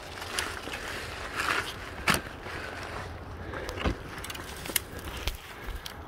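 Footsteps crunching and scuffing on leaf litter and loose rock, uneven steps with a few sharper knocks, over a low steady rumble.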